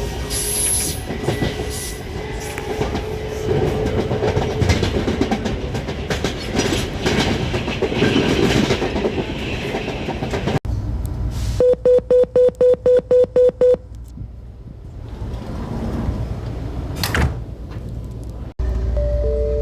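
Alstom Metropolis II 8900-series electric train running, with rattle and clatter over a faint steady inverter tone. After a cut about ten seconds in comes a quick run of about eight beeps, then quieter running.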